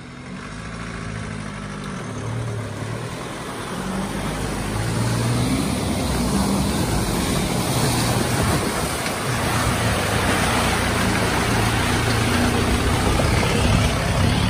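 Troller 4x4's diesel engine working hard as the truck ploughs through a water-filled mud rut, its note rising and falling, with mud and water splashing from the tyres. The sound grows louder from a few seconds in as the truck comes close.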